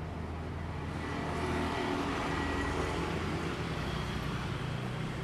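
Street traffic: a motor vehicle passing, its engine hum swelling to its loudest about two to three seconds in and then easing off.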